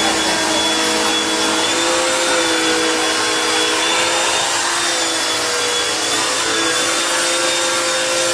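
Electric pressure washer running steadily: a constant motor whine over a rushing hiss.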